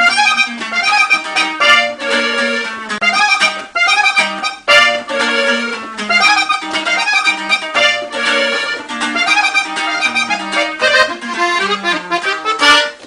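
Instrumental passage of a norteño corrido: accordion playing quick melodic runs over a band with a steady bass line.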